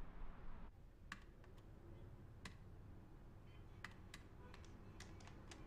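Faint, sparse, irregular clicks of keys being typed on a keyboard. A soft background hush cuts off under a second in, just before the clicks begin.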